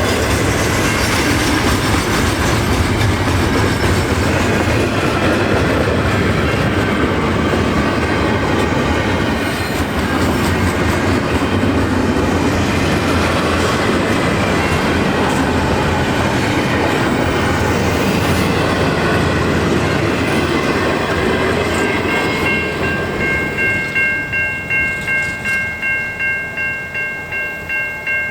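CN intermodal freight train rolling past, its railcar wheels giving a steady rumble and clatter on the rails. As the train noise fades in the last few seconds, a grade-crossing bell rings steadily, about twice a second.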